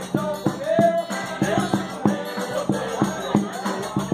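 Live forró-style band music: a piano accordion plays a melody over a steady zabumba bass-drum beat, about three strokes a second, with a bright metallic jingling from a triangle.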